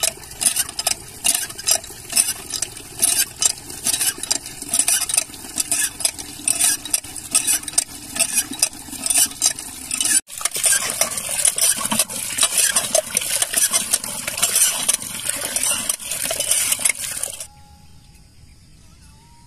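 Hand-operated water pump being worked, water gushing from the spout into a bucket in rhythmic spurts with each stroke of the handle. About ten seconds in it becomes a steadier, denser splash of water pouring into the bucket, which stops near the end, leaving only a faint background.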